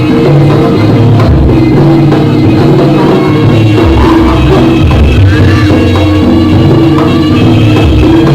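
Jaranan ensemble playing a gending live and loud, with drums over a line of low held notes.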